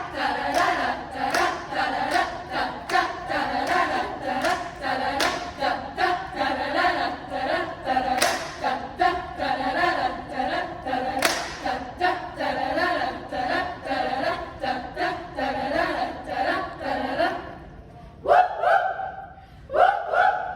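Choir singing a cappella with a steady rhythm of hand claps and slaps for the hand jive. Near the end the clapping stops and the singing breaks into short, separate phrases.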